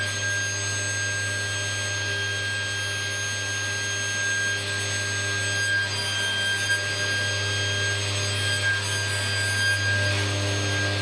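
Table saw running with its blade spinning freely, a steady hum with a constant high whine and no cut being made. Wood is rubbed and slid on the sled as pieces are set in place.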